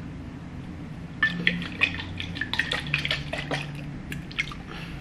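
Oil-and-vinegar sub sauce sloshing in a tall glass bottle as it is shaken by hand, a quick irregular run of small splashes and clicks. It starts about a second in and lasts about three seconds.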